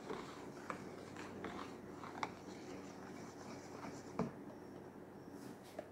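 Faint stirring of foamy liquid soap in a plastic basin with a plastic spoon: soft swishing with a few light taps of the spoon.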